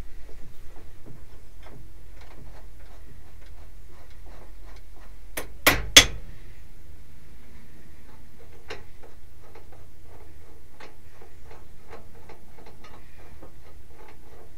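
Light metallic clicking and ticking from a wrench working the milling machine's drawbar. About five and a half seconds in come three sharp metal knocks in quick succession, as the drawbar is loosened to free the drill chuck from the spindle.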